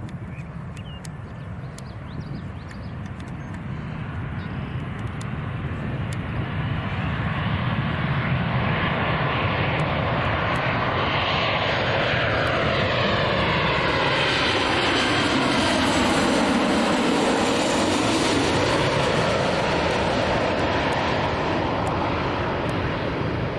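Airliner passing close by, its engine noise building up gradually and peaking about two-thirds of the way in, with a sweeping, phasing tone as it goes over, then easing off a little near the end.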